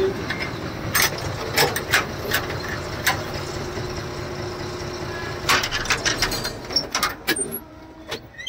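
A lorry's engine running steadily, with scattered sharp clicks and knocks over it; the hum drops away near the end.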